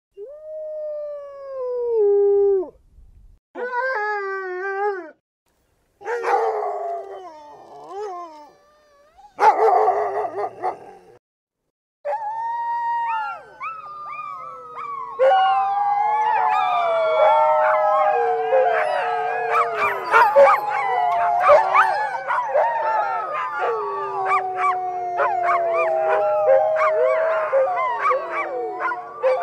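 Dogs howling. First come a few separate single howls with short silences between them, the first sliding down in pitch. From about twelve seconds in, several dogs howl together in a continuous, overlapping chorus, with short sharp yips mixed in.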